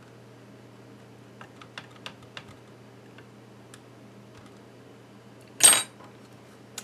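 Light clicks and taps from handling the plastic parts of an iBook G4 laptop during disassembly, then one short, loud rustling scrape about five and a half seconds in, over a steady low hum.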